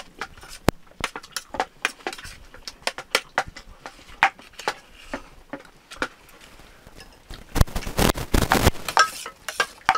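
Metal spoon clinking and scraping against a steel plate of rice while eating. The clinks come one after another, then a denser, louder run of clatter comes shortly before the end.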